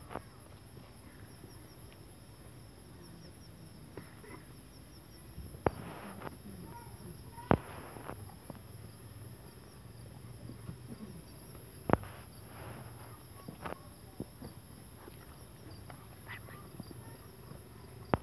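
Night insects trilling steadily in a high pitch, with a few sharp clicks or knocks at intervals, the loudest about 6, 7.5 and 12 seconds in.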